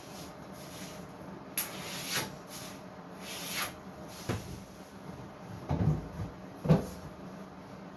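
Workshop handling noises: a sharp click, short scrapes, and several knocks, ending in two heavier thumps, as pieces and tools are handled on the bench.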